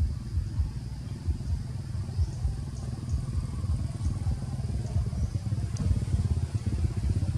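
A low engine rumble, like a motorcycle running, that grows louder and steadier near the end.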